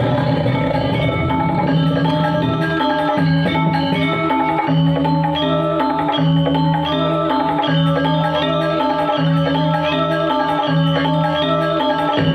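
Balinese gamelan music: metallophones play quick, repeated ringing notes over a low tone that pulses in short, even beats.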